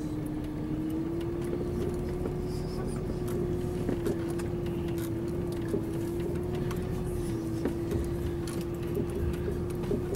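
Pickup truck driving slowly over a rough dirt track, heard from inside the cab: a steady engine and road rumble with a constant hum that rises slightly in pitch about a second in, and scattered light knocks and rattles.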